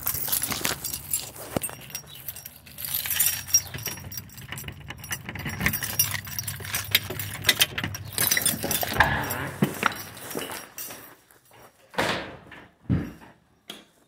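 Irregular jangling and clinking over a low steady hum, which stops about three-quarters of the way through; two separate thumps follow near the end.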